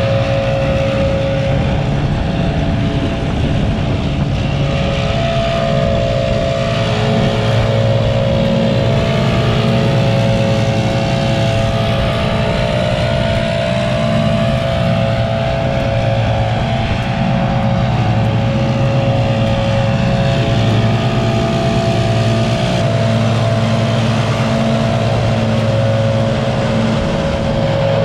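Scag V-Ride stand-on mower engine running together with a gas backpack leaf blower: a steady, loud engine drone with a constant whine on top.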